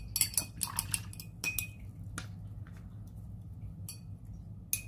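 Light clicks and clinks of slim paintbrushes being handled and laid down on a tabletop: a quick flurry in the first two seconds, then a few scattered taps, with a low steady hum underneath.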